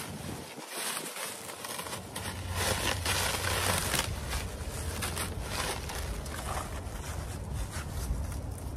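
Clear plastic packaging rustling and crinkling as it is pulled and torn off a wrapped foam item, with a steady low rumble underneath.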